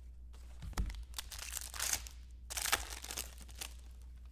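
Foil trading-card pack wrapper crinkling as it is torn open and handled: a sharp tick about a second in, then two longer rustling bursts.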